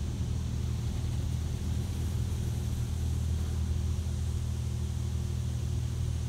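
High-pressure water spray of a PDQ Laserwash 360 Plus touchless car wash hitting the car during its pressure-wash pass, heard from inside the cabin as a steady rush over a steady low hum.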